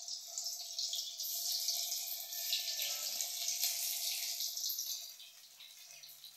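Pieces of cooked egg sizzling and crackling in hot oil in a steel kadai as they are slid in one after another. The sizzle is loud, then dies down after about five seconds.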